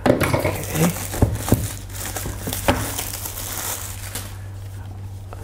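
Clear plastic shrink wrap being pulled off a cardboard box and crumpled in the hand: dense crinkling with a few sharp snaps, dying down about four seconds in.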